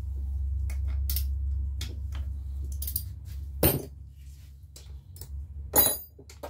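Scattered light metal clinks and taps of small bolts and a hand tool being handled, with two louder knocks, one a little past halfway and one near the end, over a steady low hum.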